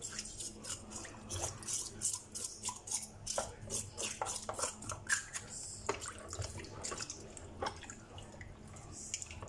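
A knife scraping the skin of a red tilapia held in a plastic basin of water, in quick scratchy strokes several times a second, with water splashing and dripping.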